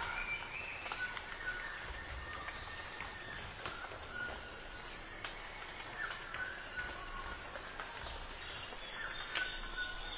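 Faint nature-like soundscape of short bird-like chirps and insect calls over a low steady hiss, with scattered soft clicks.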